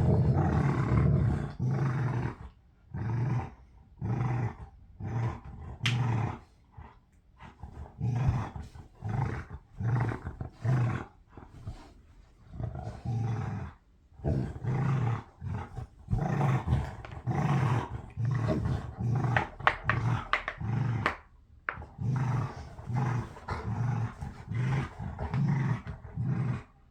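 Dogs growling in play over a toy, a long string of low growls in short repeated bouts, roughly one a second, with a few sharp clicks among them.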